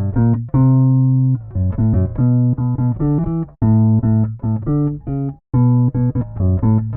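Electric Precision bass played through a Digitech Drop pitch-shifting pedal: a riff of plucked single notes, some short and some held, broken by brief pauses.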